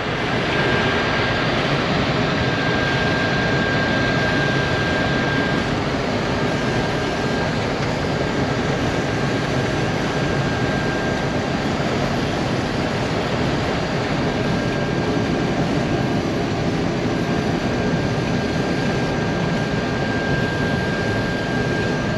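Farm machinery running steadily, a loud, even rushing noise with a thin, steady high whine that fades out about six seconds in and returns near the end.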